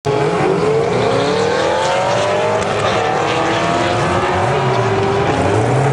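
Yamaha XJ650 motorcycle's inline-four engine revving high and held there, its pitch climbing slowly over the first few seconds. A lower engine note rises and falls near the end.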